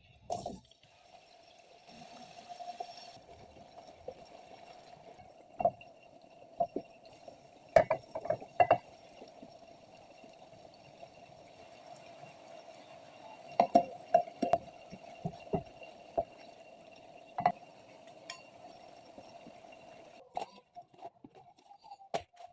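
Kitchen preparation sounds: sharp clinks and knocks of utensils against glass bowls and dishes, scattered through, with some liquid sounds, over a faint steady hum.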